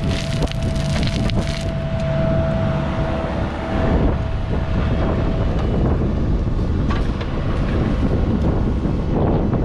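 Diesel engine of heavy construction equipment running steadily under load while backfilling, with a few metallic knocks in the first couple of seconds.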